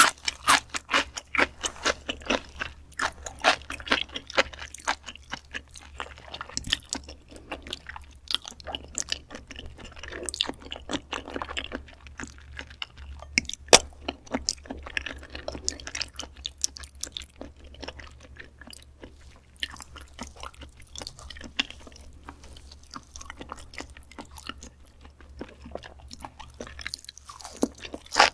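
Close-miked wet chewing of raw beef dishes (omasum, tartare and spinal cord), with many quick, irregular crunchy clicks from the mouth. One sharper click stands out about halfway through.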